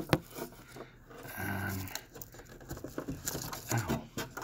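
Foam packing sheet and plastic print-head carriage being handled: rustling and scattered small clicks, with two sharp clicks at the start. A brief low hum sounds in the middle.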